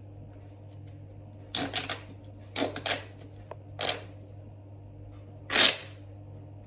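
Small toys being handled: a few short rustles and scuffs, the loudest about five and a half seconds in.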